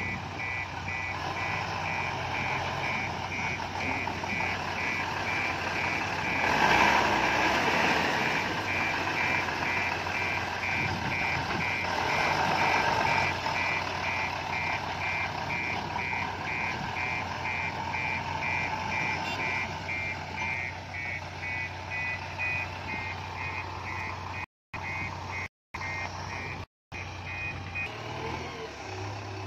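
A vehicle's reversing alarm beeping steadily, about two beeps a second, over the low running of a diesel engine that swells louder a couple of times; the beeping stops near the end, and the audio briefly cuts out three times just before that.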